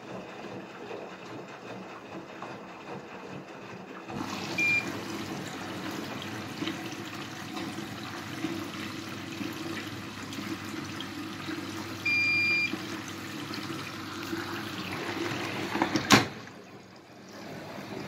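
Bosch Serie 4 washing machine's control panel beeping: a short beep about five seconds in, then a longer beep about twelve seconds in after two buttons are held together, the signal of the child lock being switched off. The running machine's steady water noise goes on underneath, and a sharp knock comes near the end.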